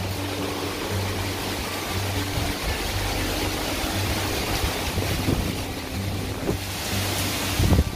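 Heavy rain with wind buffeting the microphone, a steady rushing hiss, with background music under it; the rush swells briefly and loudly near the end.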